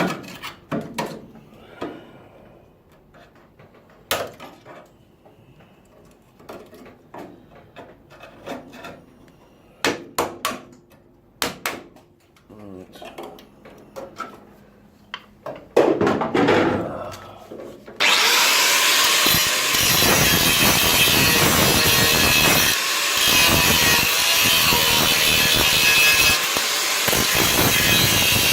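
Scattered knocks and clatter of tools being handled, then about two-thirds of the way in a power grinder starts up and grinds steadily on the car's bodywork steel, loud and harsh, its note dipping now and then as it is pressed against the metal.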